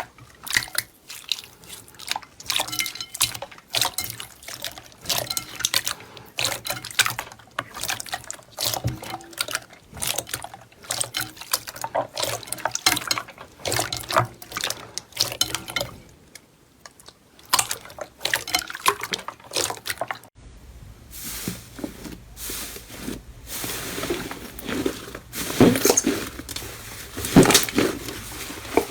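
Slime being squished and pressed by hand: a dense run of wet clicks, pops and crackles. About two-thirds of the way through, the sound cuts to another clip with a low hum beneath the squishing.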